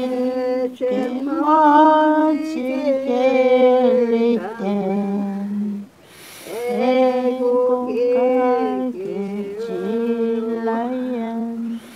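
Slow singing of a song in long, steadily held notes, with a short break for breath about six seconds in.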